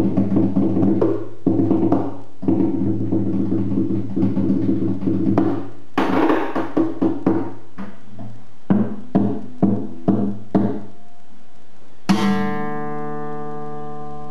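Cheap Eclipse classical acoustic guitar played percussively: quick runs of plucked and tapped notes, then a string of separate sharp plucks. About twelve seconds in, a single chord is struck and left to ring, fading slowly.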